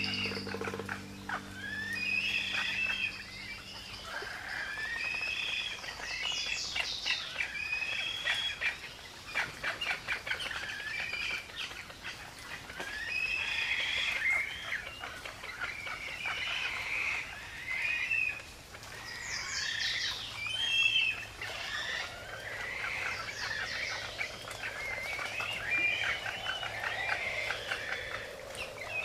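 Several songbirds singing and calling at once, a dense mix of overlapping chirps, quick down-sweeping notes and trills.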